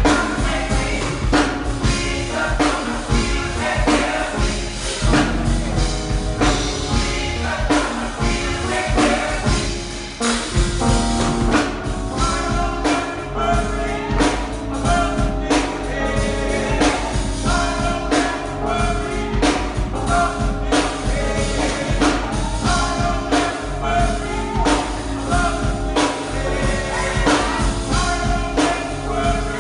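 Gospel music: singing with a choir over a drum kit and tambourine keeping a steady beat.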